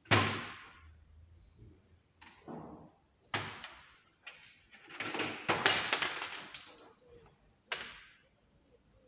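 Metal hand tools being picked up and put down on a steel workshop tool trolley: a sharp clank at the start, another about three seconds in, a few seconds of rattling clatter past the middle, and one more knock near the end.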